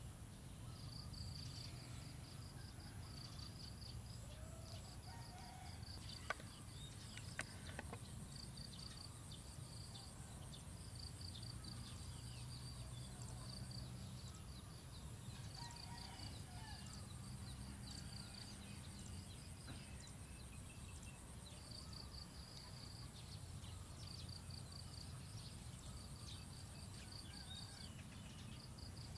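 Outdoor ambience: an insect trilling in repeated short bursts of fast high pulses, over a low steady rumble. Two sharp clicks about six and seven seconds in.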